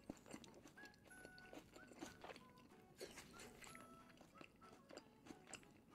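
Faint close-up chewing of a grilled tortilla wrap with the mouth closed: soft wet clicks and squelches. Faint background music with short held notes sits under it.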